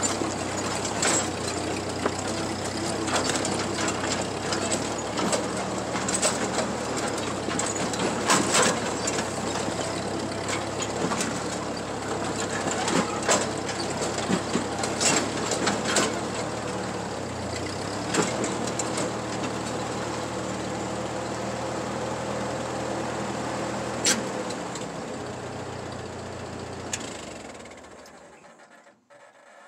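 Ford 8N tractor's four-cylinder engine running steadily while driving, with scattered clanks and rattles. The sound fades out near the end.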